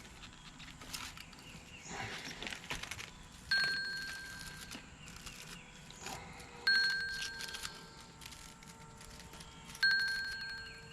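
A bell-like ringtone sounding three times, about three seconds apart, each ring starting sharply with a fast flutter and fading over a second or so. A faint steady hum runs under the later rings.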